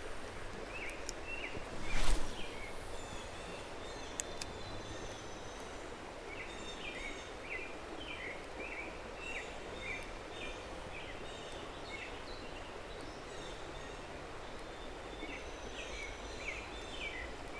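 Birds chirping in clusters of short, repeated falling notes over a steady outdoor hiss, with one brief loud rush about two seconds in.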